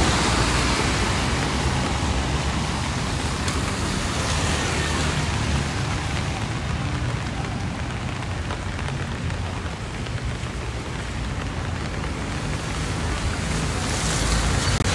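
Wet-street ambience: a steady hiss of rain with road traffic passing, the traffic rumble swelling at the start and again near the end.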